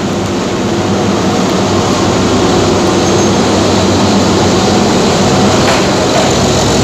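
Henschel DHG 1000 BB diesel-hydraulic locomotive's diesel engine running steadily as it rolls slowly in along the platform, growing gradually louder as it approaches.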